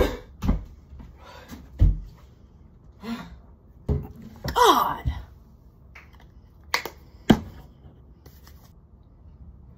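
Footsteps on a wooden floor, two low thuds in the first two seconds, then two sharp clicks about half a second apart later on.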